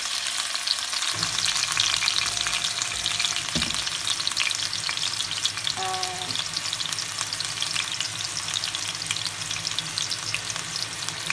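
Chopped onions sizzling and crackling in hot vegetable oil in a wok, a steady frying hiss throughout.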